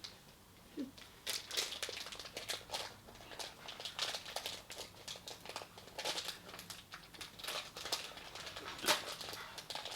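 Plastic sweets bag crinkling and rustling irregularly as it is handled and opened.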